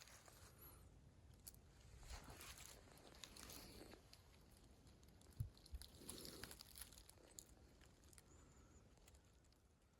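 Near silence with faint rustling and crunching, and two soft knocks about five and a half seconds in.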